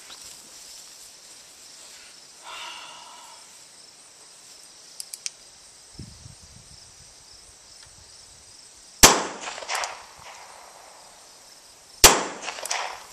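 Two gunshots from a Nagant M1895 revolver firing original 7.62x38R Nagant cartridges, about three seconds apart, each followed by a short echo. A couple of faint clicks come a few seconds before the first shot, and insects chirr steadily in the background.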